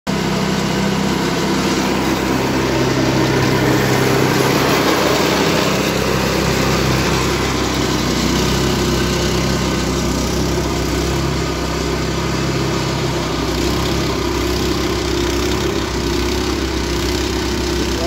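Small gasoline engine of a homemade remote-control snow blower running steadily under load while its auger and chute throw snow.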